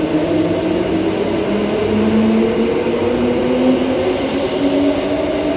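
Two Transperth electric multiple-unit trains pulling away from the platform together. Their traction motors give a steady hum of several tones that shift slowly in pitch as the trains gather speed.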